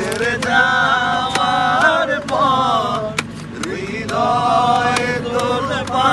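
A group of people singing a Bengali song together in unison, with hands beating a rhythm on a plastic stool as a makeshift drum.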